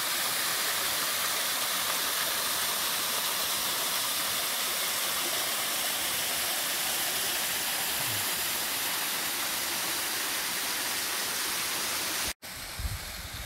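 Water of the Serpentine River cascading over a rock ledge into a pool: a steady rushing splash. It cuts off abruptly near the end and gives way to a quieter sound with low rumbling.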